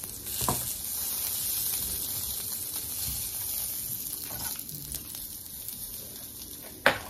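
Food frying in a pan, a steady sizzle, with one sharp knock near the end.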